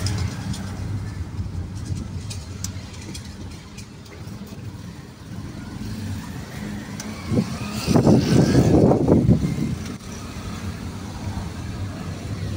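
Car interior noise as the car rolls slowly: a steady low engine and road rumble. About seven seconds in there is a click, followed by a louder, noisy burst lasting a second or two.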